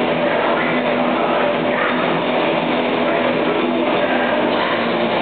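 Heavy metal band playing live: distorted electric guitars, bass and drums, loud and unbroken. It sounds dull and muddy, with the highs cut off by the camera's recording.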